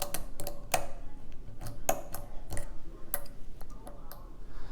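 Metal lock pick clicking irregularly against the pins inside a pin-tumbler challenge lock, a dozen or so sharp ticks as individual pin stacks are probed and lifted.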